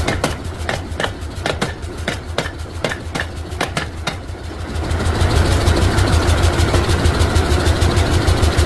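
A motor-driven workshop machine running with a steady, pulsing low hum, with a quick series of sharp strikes on metal over the first four seconds; the machine gets louder about five seconds in.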